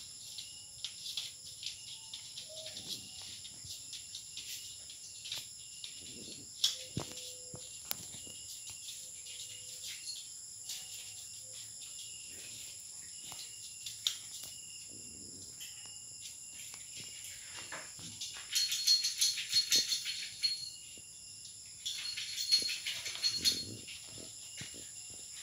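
Puppies scratching, pawing and tugging at a bristly plastic floor mat: scattered small clicks and rustles, then two louder spells of scraping near the end as they tear at the mat. A steady high-pitched drone runs underneath.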